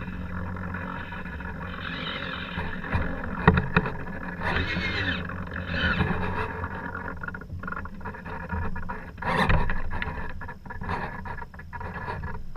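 Wind and water rushing past a GoPro on a sailboat under way, with a low hum and sharp knocks of deck gear, the loudest about three and a half and nine and a half seconds in. A few short squeaks come around five to six seconds in.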